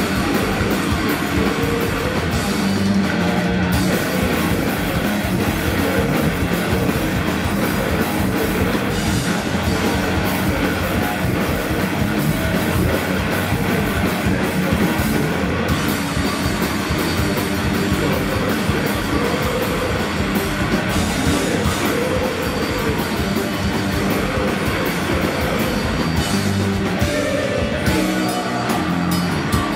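Heavy metal band playing live and loud: distorted electric guitars and bass over busy drum-kit playing, with no let-up, turning choppier in the low end near the end.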